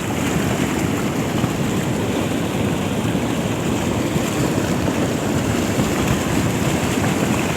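Steady rushing noise of wind and water, with no distinct events.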